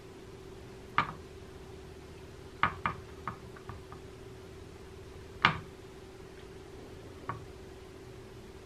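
Light knocks and clicks of pickle slices being set down on cheese-topped bread on a plate: a few scattered taps, a quick cluster about three seconds in, and the sharpest knock about five and a half seconds in. A faint steady hum runs underneath.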